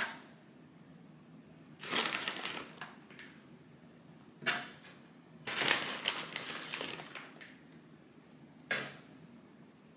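Kitchen handling noise: several bursts of crunching and crinkling. The longest bursts are about a second in and around the middle, with short ones in between.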